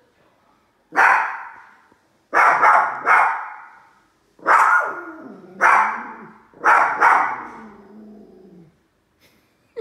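Small dogs barking at a large plush toy: about seven sharp barks in an irregular run, two of them in quick succession, each with a short ringing echo.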